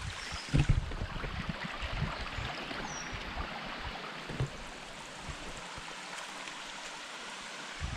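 Stream water running steadily. Irregular low thumps knock on the microphone, the strongest about half a second in and another around four and a half seconds.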